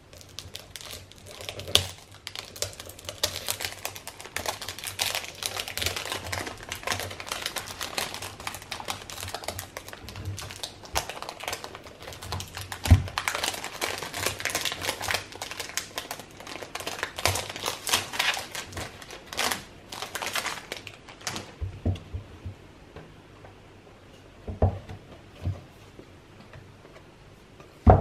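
Paper wrapping on a small gift box being unfolded by hand: a dense crinkling, crackling rustle for about twenty seconds, then a few light taps as the box is handled.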